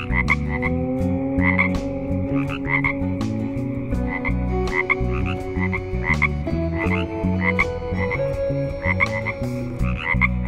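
Frog croaking: short, rasping calls in quick runs of two or three, repeated every second or so, over a steady low background.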